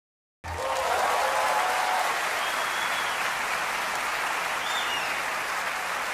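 Crowd applauding, a steady clatter of many hands that starts about half a second in.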